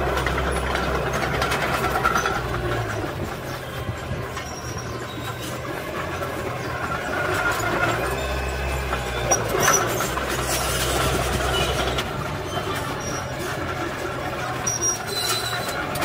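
Small crawler bulldozer working: its diesel engine runs steadily, growing louder and quieter in stretches of a few seconds as it pushes soil, with short high metallic squeaks and clatter from its steel tracks.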